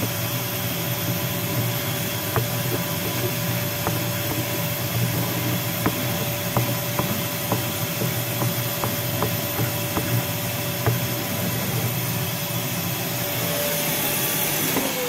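500 W ER11 spindle on a Sienci Mill One CNC running steadily with a constant whine and hum while face-milling a thin layer off a painted wood slice. Scattered sharp ticks sound through the cut.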